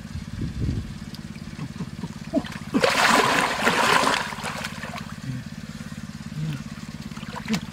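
Water splashing hard for about a second, a little under three seconds in, over a steady low motor hum.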